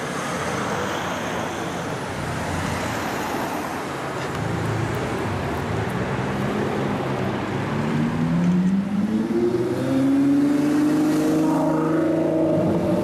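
Street traffic, then a Novitec-modified Ferrari F12's V12 engine accelerating from about eight seconds in, its pitch rising and then holding high as the loudest sound.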